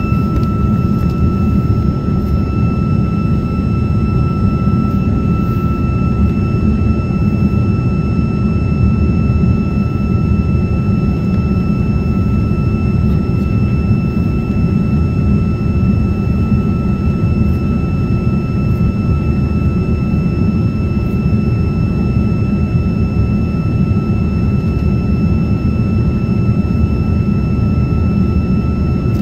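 Steady in-flight cabin noise of an RAF Voyager jet tanker: a loud, even low rumble from the engines and airflow, with a thin steady whine above it.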